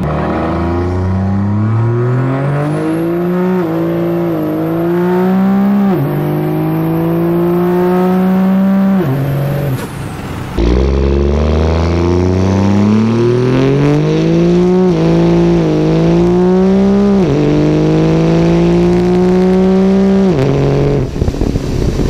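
Cummins turbo-diesel pickup accelerating hard through the gears of its automatic transmission, fitted with a Suncoast valve body and paddle shifters. The engine note climbs, drops sharply at each quick, firm upshift, then climbs again. There are two such full-throttle pulls, the second starting about ten and a half seconds in, each with several upshifts.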